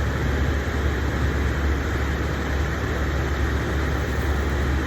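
Steady rushing noise with a strong low rumble, unbroken throughout.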